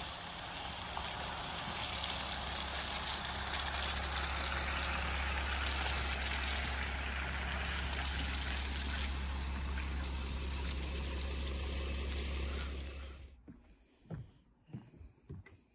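Steady wind rumble on the microphone over a hiss of rain, which cuts off suddenly about 13 seconds in. After that it is much quieter, with a few soft knocks.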